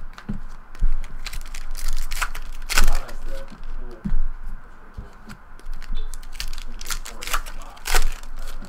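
Foil trading-card packs being torn open and handled by hand, with crinkling wrapper and sharp, irregular snaps and rustles of cards and packaging.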